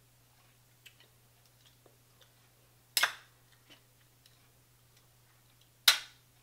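Two sharp cracks of shellfish shell being broken apart by hand, about three seconds apart, with faint clicks of handling in between.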